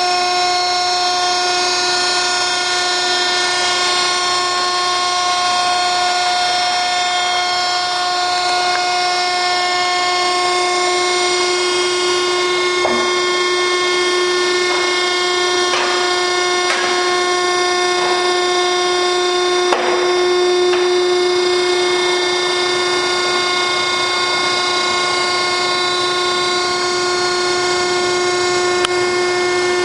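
Hydraulic power unit of a REC7242 TB tire baler running with a steady whine as the ram makes its compression stroke on a load of tires. A few short sharp knocks come partway through.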